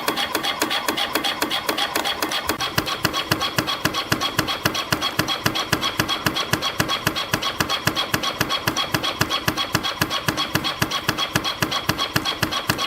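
CNC spring coiling machine (CF-308) running, feeding 0.7 mm wire and coiling conical compression springs in a fast, even mechanical rhythm of several strokes a second over a steady high tone. About two seconds in, a deeper thump joins each stroke.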